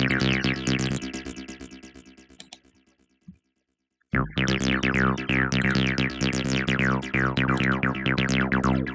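Sytrus FM synthesizer preset playing: a sustained low drone layered with many quick falling zaps. It fades out about three seconds in, and after a short silence starts again sharply about four seconds in.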